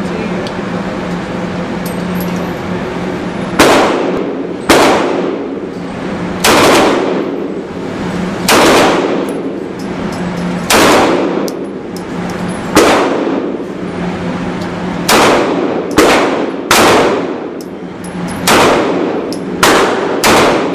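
Beretta PX4 Storm Subcompact 9mm pistol firing about a dozen single shots, one to two seconds apart, each echoing off the walls of an indoor range. A steady low hum runs underneath.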